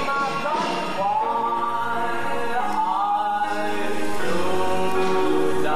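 A man singing a solo in held, gliding notes over musical accompaniment, growing louder about four seconds in.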